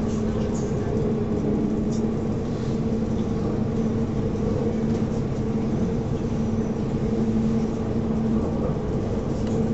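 Inside a moving SNCF passenger train: a steady rumble of the wheels on the rails with a constant low hum running under it.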